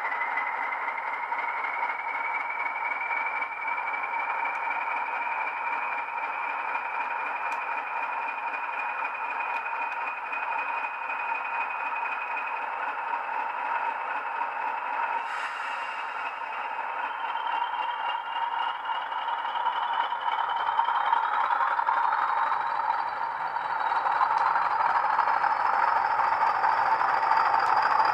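Class 40 diesel sound from a Legomanbiffo DCC sound decoder, played through a pair of 27mm speakers in a Bachmann model locomotive: the English Electric engine running under power with its turbocharger whistle, a whine that rises slowly in pitch. It grows louder near the end.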